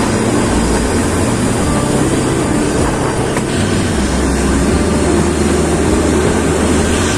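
Narrow-gauge train running, a steady rumble and rattle of the carriages on the track.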